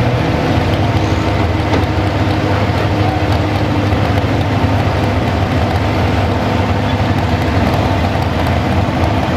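Modified 4x4 pulling truck's big-block engine idling loud and steady through its open stacks, stopped at the end of its pull.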